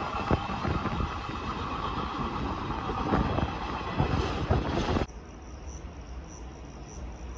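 Train passing on the line, its wheels clicking over rail joints, with a cluster of clicks just before the sound cuts off abruptly about five seconds in. A quieter steady background follows, with faint regular high ticking.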